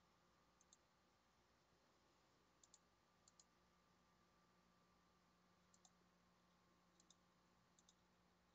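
Near silence, with six faint quick double clicks of a computer mouse spread through it.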